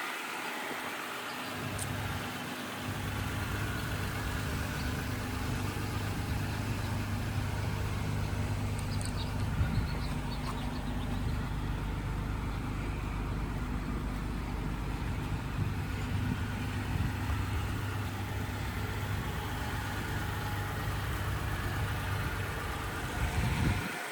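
Toyota Tacoma pickup's engine idling steadily, a low even hum that comes in about two seconds in, with a brief swell near the end.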